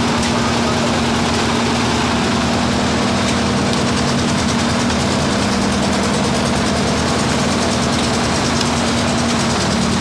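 Concrete lift mixer machine running steadily, its engine giving an even, unchanging hum.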